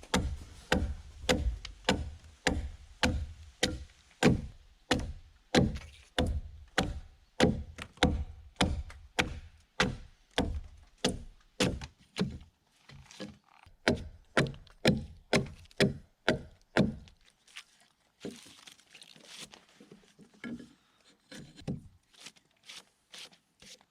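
Rhythmic chopping strikes into a wooden log, about two a second, stopping about 17 seconds in; fainter scattered knocks follow.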